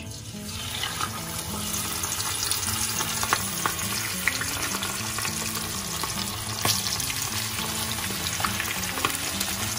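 Whole turmeric-marinated Indian mackerel deep-frying in hot oil: a steady sizzle full of crackling pops that builds up within about the first second as the fish goes in.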